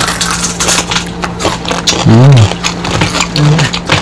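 Crispy fried tilapia crunching and crackling as it is bitten and chewed, in many sharp bursts. A hummed "mmm" rises and falls about two seconds in, and a shorter one comes near the end, over a steady low hum.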